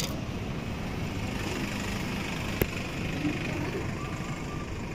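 Steady outdoor town background: a low hum of distant traffic under a faint even hiss, with one short click a little past halfway.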